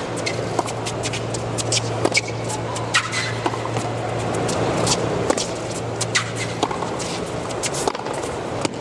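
Tennis stadium crowd murmuring between points over a steady low hum, with scattered sharp clicks and taps at irregular intervals.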